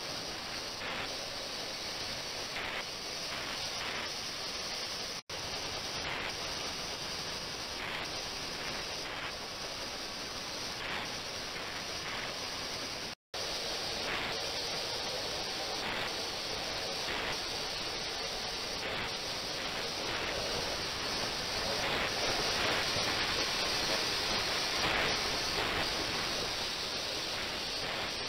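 Steady hiss of water in an ultrasonic tank with its transducers running, the churning water giving a fizzing, spray-like noise, broken off briefly twice.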